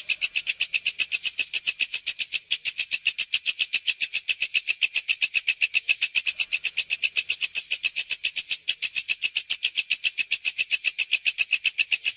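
Walang kecek bush cricket (katydid) calling: a steady, fast train of high-pitched, evenly spaced chirps, about seven a second.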